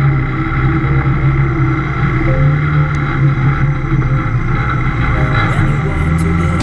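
Homemade off-road buggy's engine running under load as it drives through mud, a steady engine note with small changes in pitch. Heard from on board and muffled.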